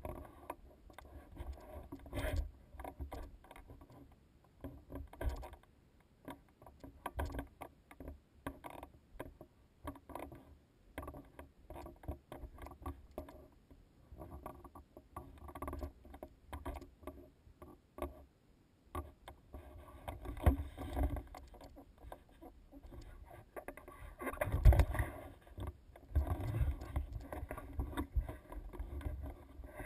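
Hiking footsteps scuffing and knocking over rock and gravel, with gear and body-mounted camera rubbing and rattling, in an irregular string of thumps that grow louder near the end.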